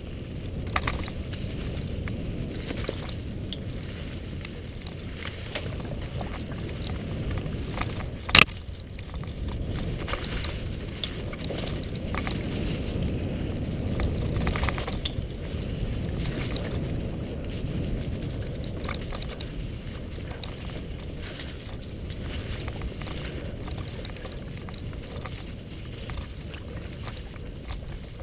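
Mountain bike rolling over leaf-covered dirt singletrack: a steady low rumble from the tyres and frame, with scattered rattles and clicks and one sharp knock about eight seconds in.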